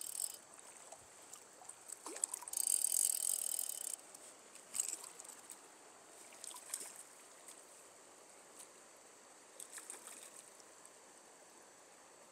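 Fly reel's drag buzzing for about a second, a few seconds in, as a hooked rainbow trout pulls line off it. A few scattered clicks follow over the faint steady rush of the stream.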